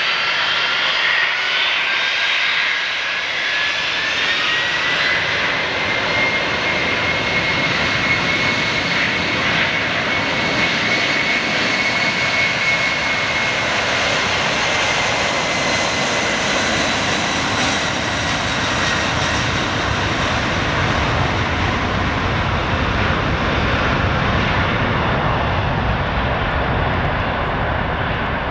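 McDonnell Douglas MD-11 trijet on its takeoff roll at takeoff thrust, with a continuous jet roar. A turbofan whine rises in pitch over the first several seconds as the engines spool up, then holds steady. A deeper rumble builds in the second half as the aircraft passes and lifts off.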